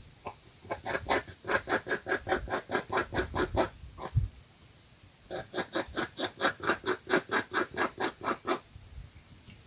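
An unseen animal under a deck giving a rapid train of short calls, about five or six a second, in two runs of about three seconds with a pause between.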